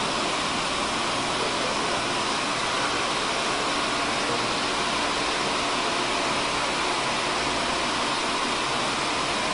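Steady, even rushing hiss that holds the same level throughout, with no distinct events.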